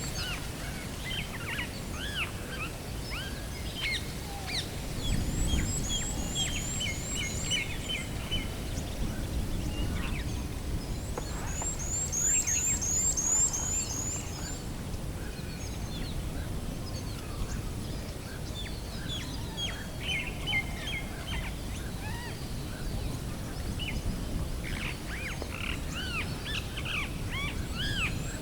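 Several wild birds singing and chirping, with bursts of a fast, high, repeated trill now and then, loudest about halfway through, over a steady low rumble.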